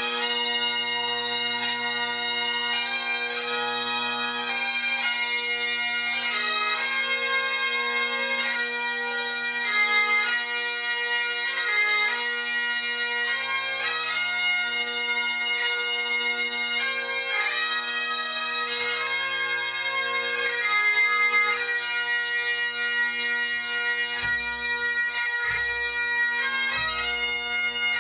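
Great Highland bagpipes of a pipe band playing a slow melody of long held notes over steady drones. Slow low drum beats come in near the end.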